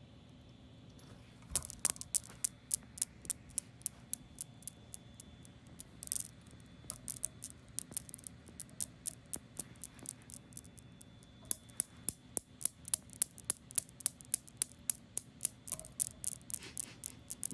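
Steel balls of a desk Newton's cradle clicking against one another as a cat bats them with its paw: runs of quick sharp clicks, several a second, with short pauses between the runs.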